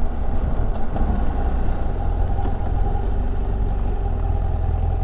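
Motorcycle engine running steadily at low revs as the bike rolls slowly along.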